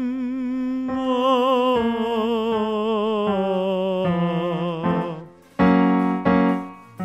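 A man humming long notes with a clear vibrato over a piano accompaniment, the pitch stepping through a vocal exercise scale. Near the end the hum opens into two louder sung "ma" notes. It is a hum-then-release-on-"ma" warm-up for resonance and vibrato.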